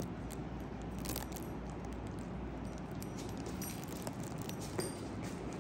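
Dogs moving about: scattered light clicks and jingles, such as collar tags and claws on the floor, over a steady low hum.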